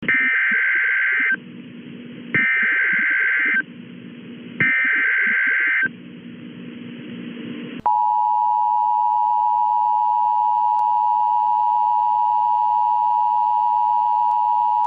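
Emergency Alert System header: three short bursts of digital data tones, each about a second and a half long, a second apart. About eight seconds in, a long steady single-pitched attention tone begins.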